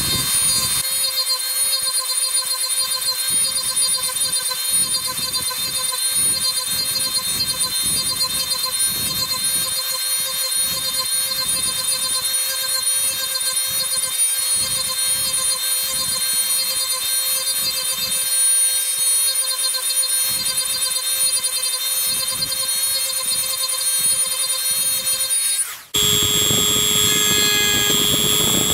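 Handheld rotary tool with a small round burr whining steadily at high speed as it carves dimples into a wooden spoon handle, the burr's repeated bites into the wood adding a rough, uneven chatter underneath. Near the end the sound cuts off abruptly and picks up again with a slightly lower, steadier whine as a cylindrical bit is used.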